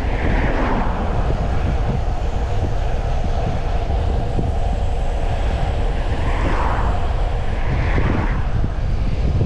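Wind buffeting the microphone of a bicycle speeding downhill: a loud, steady rush, with a higher whoosh that swells and fades near the start and again from about six to eight seconds in.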